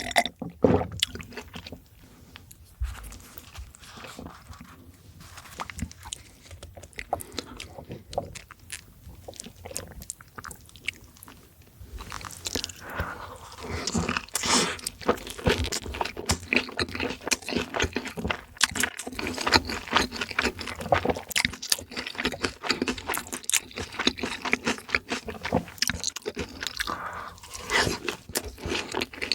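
Close-miked chewing and crunching of crispy fried food, many sharp crackles, soft and sparse at first and then dense and louder from about twelve seconds in.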